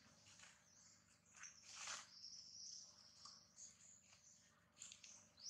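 Faint outdoor ambience of high, thin bird chirps and insect buzzing, with a longer high-pitched trill in the middle and a short rising chirp near the end.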